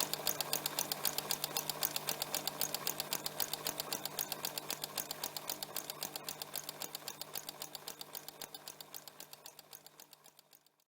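Sewing machine running, its gears and needle mechanism clicking rapidly and evenly, about six or seven stitches a second, over a steady motor hum. The sound fades out gradually over the last few seconds.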